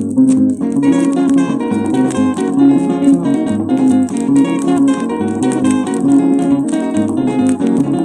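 Instrumental passage of a 1970s Nigerian highlife band: plucked electric guitars play interlocking lines over a shaker keeping a steady, even beat, with more melodic parts coming in about a second in.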